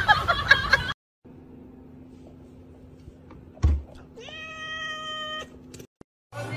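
A cat's single long, steady meow, rising at its start, about two-thirds of the way through, just after a short thump. A loud jumble of sound fills the first second.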